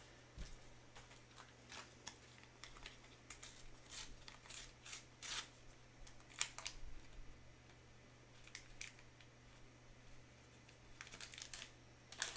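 Faint crinkling, rustling and tearing of paper sticker-pack wrappers being handled and opened, in short scattered bursts, with a quieter stretch past the middle.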